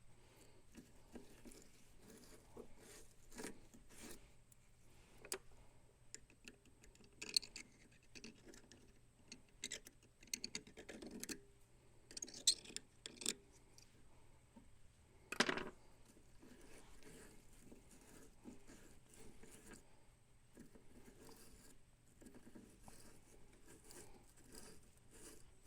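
Faint scratching, clicking and tapping of small parts handled by hand while an O-ring in a pressure washer fitting is replaced, with one sharper knock about halfway through. A steady low hum lies underneath.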